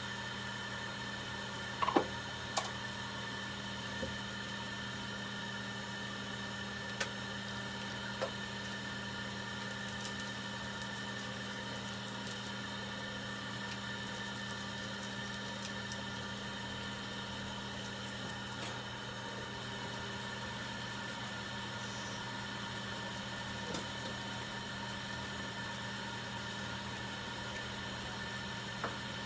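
Steady machine hum made of several fixed tones, with a few short clicks and knocks over it, the sharpest about two seconds in.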